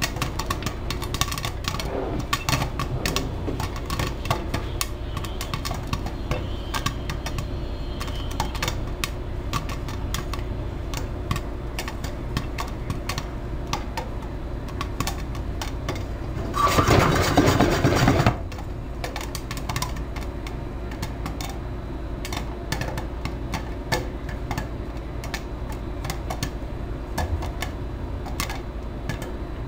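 Popcorn kernels popping inside a frying pan under a glass lid: a fast, irregular patter of small pops. More than halfway through comes a louder rattling burst of about a second and a half, the loudest moment.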